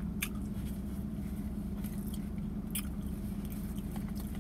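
A person chewing and eating a spinach feta wrap with their mouth, with a few short sharp clicks, over a steady low hum in the car cabin.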